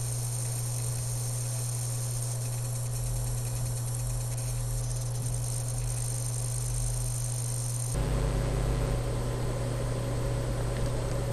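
Dell M65 notebook whine from the underside of the laptop: a steady high tone over a strong low hum and hiss. About eight seconds in the sound changes abruptly, the hiss turning rougher and louder.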